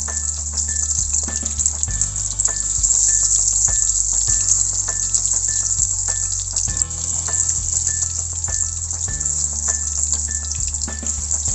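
Battered cauliflower florets deep-frying in hot vegetable oil: a steady loud sizzle with many small crackling pops.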